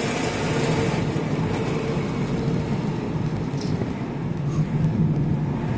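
Car engine and tyre noise heard from inside the cabin while driving on a city street, steady throughout.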